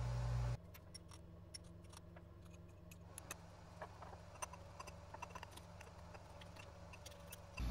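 A steady low hum cuts off about half a second in. It is followed by faint, irregular clinks and ticks of a spoon stirring powdered soda-ash-and-borax flux into silver sulfate in a glass beaker.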